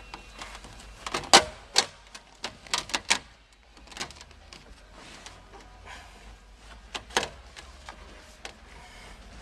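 Hands pressing and tapping a foil-backed sound-deadening sheet into the contours of a car's sheet-metal inner door skin. It gives a series of sharp taps and knocks, clustered in the first few seconds, with another loud one about seven seconds in.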